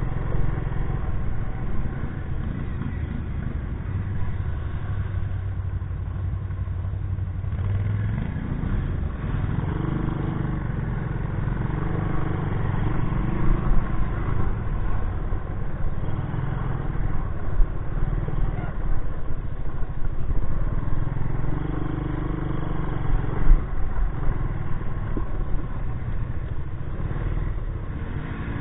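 Engine of a 1984 Honda ATC200S three-wheeler, an air-cooled single-cylinder four-stroke, running under way on a trail ride, its note rising and falling with the throttle.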